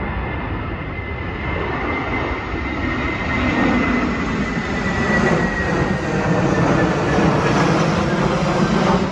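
Twin-engine jet airliner on final approach passing low overhead: a high engine whine slowly falling in pitch over a broad rumble that grows louder toward the end, with wind buffeting the microphone.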